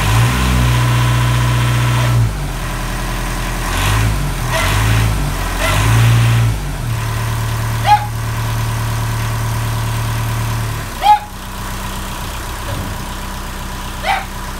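Widebeam canal boat's diesel engine running soon after its first start in nine months, its note rising and falling a few times and then settling lower about eleven seconds in. A few short, sharp sounds cut through it, the loudest about eleven seconds in.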